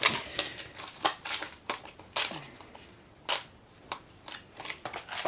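Irregular clicks and clatters of small metal tools and lock parts being handled.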